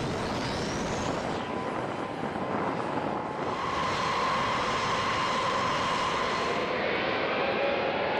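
B-52 Stratofortress jet engines, TF33 turbofans, starting up: a steady loud rush with a turbine whine that rises in pitch early on and grows louder, with higher whining tones, about halfway through.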